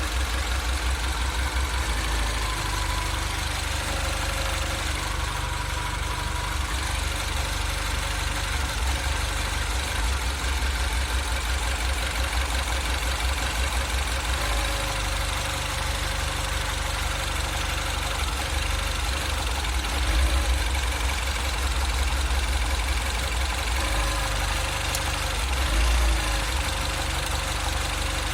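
2008 Mini Cooper S's N14 turbocharged 1.6-litre four-cylinder engine idling roughly, swelling in loudness about two-thirds of the way through and again near the end. This is the idle surge problem whose cause the owner does not know.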